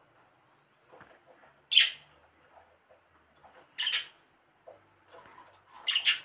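A hand kneading a soft butter mixture with the palm against a glazed clay bowl: faint rubbing, with three short sharp squeaking sounds about two seconds apart as the hand pushes across the bowl.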